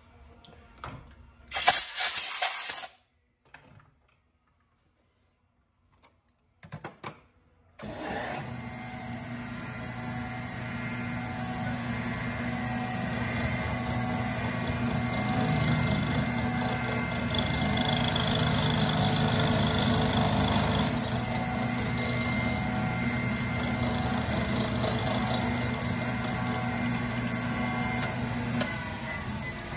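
A short loud burst of noise about two seconds in, then, after a break, a small combination lathe-mill starts up about eight seconds in and runs steadily, its motor and gear drive giving several fixed tones, while it mills an aluminium block.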